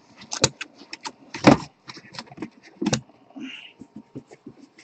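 Irregular knocks and clicks of sealed trading-card boxes being handled and set down on a table, the loudest knocks about a second and a half in and near three seconds.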